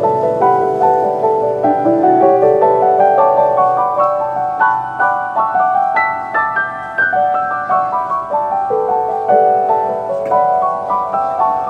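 Background piano music: a melody of separate notes moving up and down over held lower notes.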